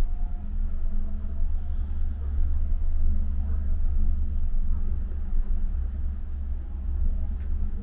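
Steady low rumble and hum inside a moving cable-car gondola of Sarajevo's Trebević cable car as it runs along its cable.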